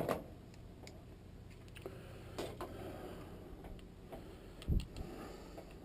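Light, irregular clicks and taps of hand tools and metal transmission parts being handled, with one dull thump about three-quarters of the way through.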